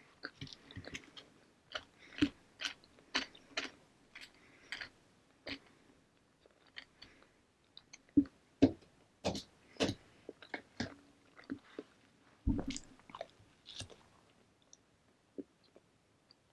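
Close-miked chewing of a piece of toasted bagel spread with butter: irregular sharp mouth clicks and crunches that thin out near the end.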